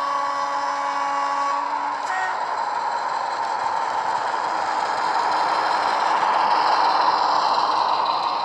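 A Bachmann Class 40 model diesel locomotive's ESU LokSound decoder plays the diesel engine sound through two 27mm round speakers as it runs past, mixed with wheels rattling on the track. It grows louder as the locomotive approaches and passes, peaking near the end. A steady pitched note sounds for the first second and a half, and a short higher note follows.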